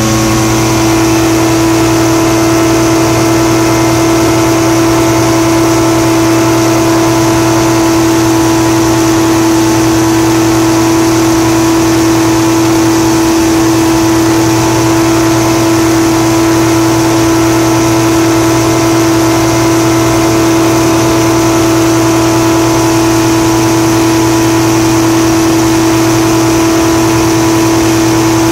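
Single-engine light aircraft's engine and propeller running steadily in cruise flight, heard from inside the cockpit as a loud, even drone with a fixed pitch.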